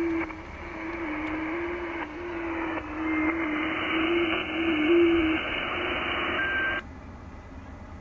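Shortwave receiver audio on the 30-metre band: a hiss of band noise carrying an FT8 digital signal, heard as a low tone that hops between nearby pitches. The tone stops about five seconds in, and the band noise cuts off suddenly shortly before seven seconds in.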